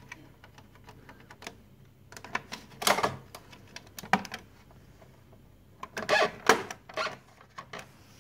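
Plastic side cover of a Samsung ML-2525 laser printer being pried off by hand: sharp clicks and knocks in several clusters as its plastic clips come free.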